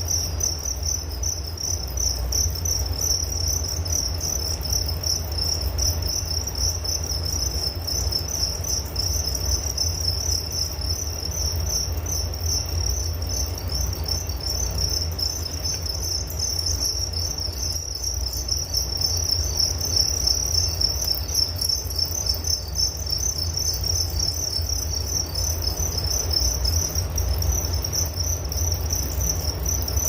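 Crickets chirping in a continuous, fast, high-pitched trill, over a steady low rumble.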